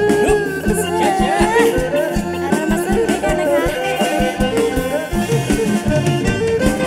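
Kantrum band playing an instrumental passage: a two-string bowed fiddle (tro) leads with a sliding, bending melody over drum kit and electric bass keeping a steady beat.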